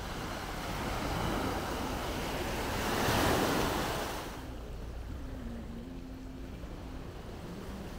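Small waves washing onto a sandy shore, swelling to a louder surge of surf about three seconds in, then settling to a quieter steady wash.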